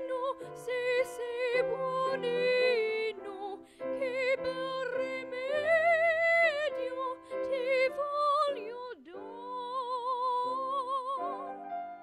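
A female voice singing a slow melody in a classical, operatic style with a marked vibrato, over a soft instrumental accompaniment.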